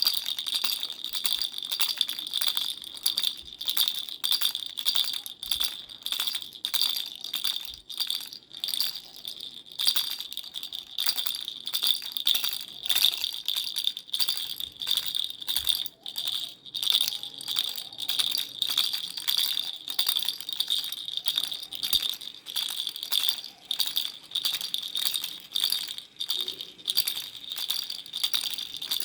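Parrot baby rattle shaken over and over in quick strokes, each shake a rattling click over a steady bright jingling ring.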